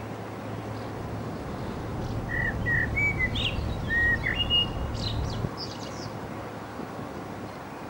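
A small bird chirping a quick series of short whistled notes between about two and six seconds in, over a steady low hum and rumble.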